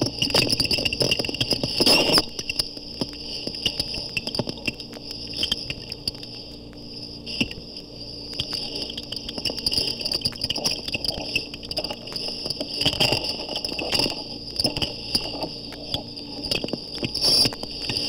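Underwater hydrophone recording of manatees in a tank: high-pitched squeaks almost like a mouse, with scraping and rubbing sounds between them as the animals push themselves sluggishly across the bottom of the tank.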